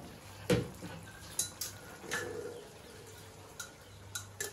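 A few scattered clinks and knocks of steel cookware and utensils, the loudest about half a second in, over a faint low steady hum.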